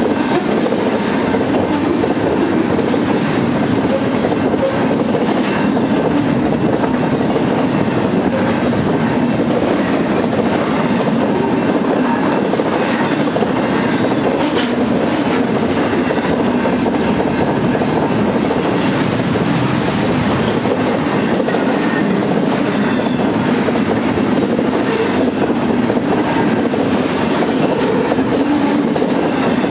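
Double-stack intermodal freight train's loaded well cars rolling past at close range: a steady, loud rumble of steel wheels on the rail with light clicks scattered through it.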